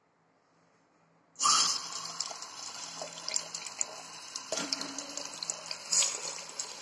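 Tap water running into a washbasin and splashing off a plastic spoon held under the stream. It starts suddenly about a second and a half in, then runs steadily with small splashes.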